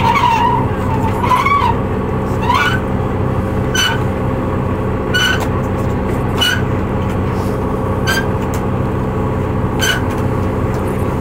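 A ship's engine running with a steady drone. Sharp clicks sound over it roughly every second and a half.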